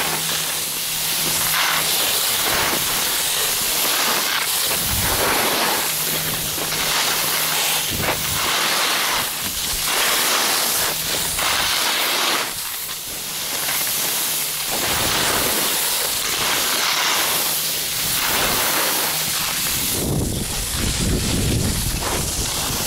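Skis sliding and scraping over snow: a loud hiss that swells and fades in waves with the turns, with a low rumble joining in near the end.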